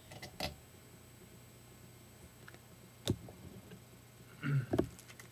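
Trading cards being handled and set down: a few scattered clicks and taps, the sharpest about three seconds in, then a quick cluster of them near the end.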